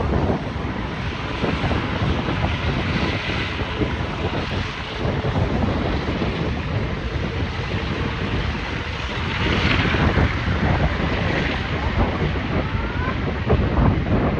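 Wind buffeting the microphone in gusts over a steady noisy rumble.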